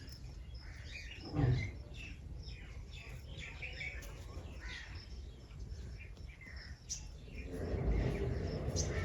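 Wild birds chirping in many short calls. A brief low thump comes about a second and a half in, and from about seven and a half seconds a louder steady background noise sets in under the chirps.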